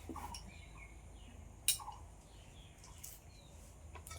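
Faint bird chirps: short notes falling in pitch, repeating every second or two, with a few fainter higher chirps between them. A single sharp click comes about one and a half seconds in.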